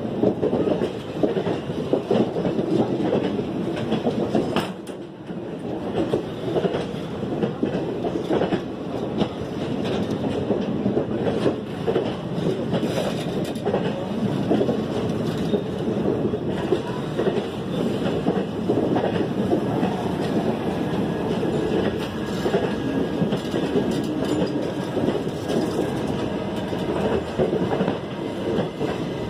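Indian Railways passenger coaches rolling past close by: a steady rumble of the moving train with continual clickety-clack of the wheels over the rail joints.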